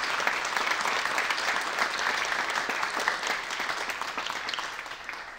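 Audience applauding, a steady clatter of clapping hands that dies away near the end.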